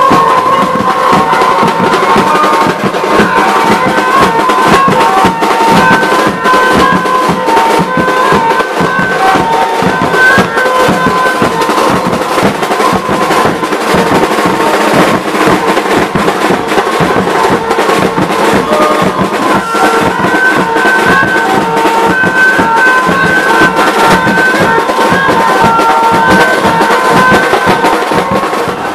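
Mumbai banjo band playing: drum kits and stick-beaten hand-held drums keep a fast, dense beat under a high melody line that steps between held notes.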